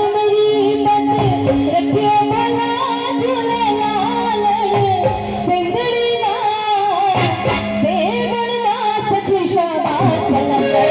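A woman singing a melody live into a microphone, amplified through a PA, with a band of keyboard, hand drum and drums. A steady held keyboard note runs under most of the singing.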